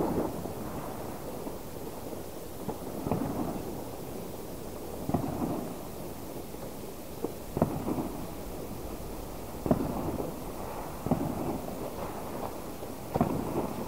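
Fireworks going off: irregular muffled bangs, roughly one every one to two seconds, each trailing off in a rumbling echo.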